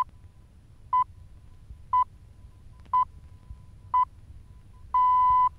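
BBC World Service Greenwich Time Signal, "the pips": short single-pitch beeps one second apart, then a longer final beep about five seconds in that marks the hour.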